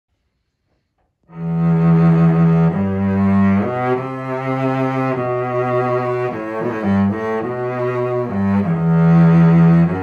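Solo cello, a 1923 Joseph Müller from Bohemia, bowed: long sustained low notes that start about a second in and change every second or so, with a quick run of short notes midway.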